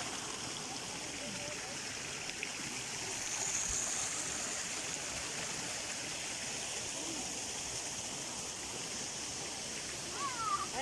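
Flowing stream water rushing steadily. Near the end come a few short rising calls.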